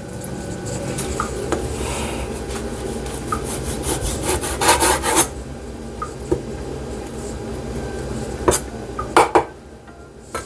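Steady rubbing and scraping as raw oxtail pieces are worked by hand, with a few sharp clicks and knocks about halfway and again near the end.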